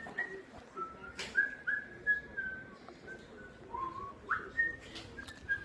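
A person whistling a casual tune in short, clear notes, some sliding up in pitch, with a few sharp clicks.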